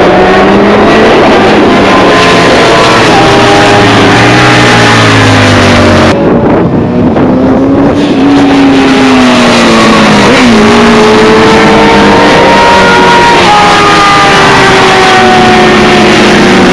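Several sports motorcycles' engines running hard on a race circuit, heard at once. Their pitches climb and drop back as the riders change gear and pass.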